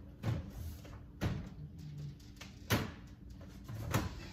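Four sharp knocks, each a second or so apart, of containers being set down and handled on pantry shelves.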